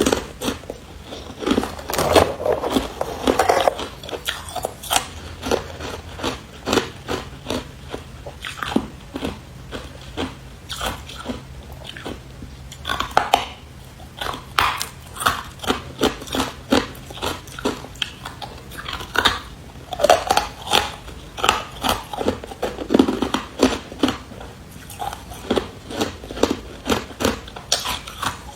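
Someone biting into and chewing carbonated ice: a long run of sharp, crisp crunches coming one to two a second, with short pauses in between.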